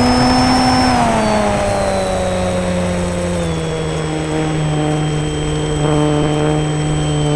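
Electric motor and propeller of a foam RC model plane heard from on board, a steady whine over rushing air. Its pitch rises a little at first, then falls slowly through the rest as the throttle comes back.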